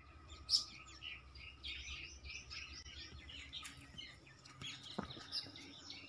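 Tailorbirds chirping: a rapid run of short, high chirps, with a sharper chirp about half a second in. A single soft knock about five seconds in.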